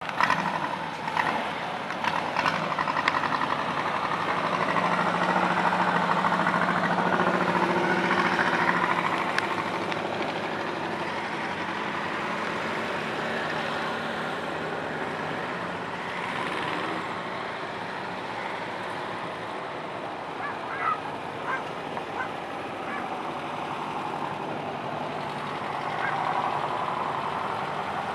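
Motor trike engines running, loudest between about four and nine seconds in and easing off after that, with a few short high toots around twenty seconds in.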